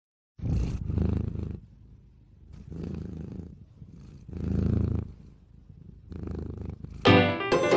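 A sleeping pet breathing with a low rumble: four stronger pulses about every two seconds, with fainter rumbling between them. Music starts near the end.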